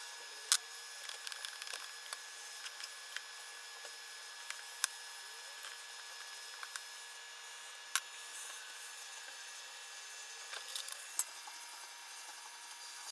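Scattered sharp clicks and light taps over a steady background hiss, with a few louder clicks standing out now and then.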